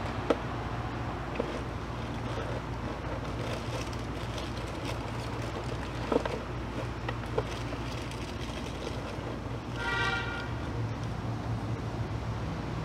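Steady low mechanical hum with a few light taps and rustles from a cardboard cereal box being handled, and a short pitched tone about ten seconds in.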